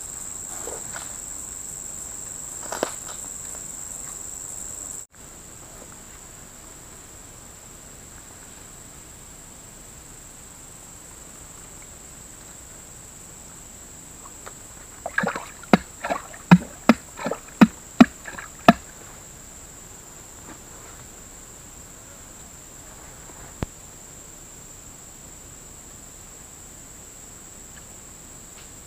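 Steady high-pitched drone of insects, which drops abruptly in level about five seconds in. About halfway through comes a run of roughly ten sharp clicks or knocks, about three a second, the loudest sounds here.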